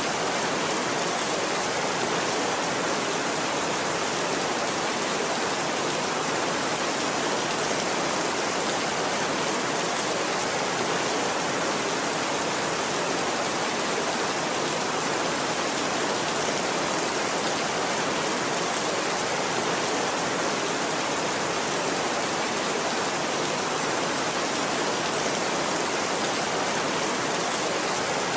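Steady rain falling: an even, unbroken hiss that stays the same throughout, with no thunder.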